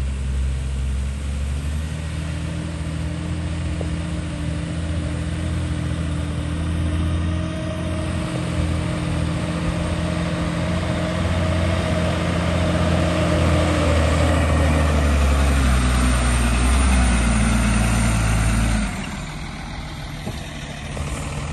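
AMW tipper truck's diesel engine working under load as the loaded truck pulls across soft dirt, a steady engine note that grows louder for several seconds. Near the end the sound drops suddenly to a quieter, lower engine rumble.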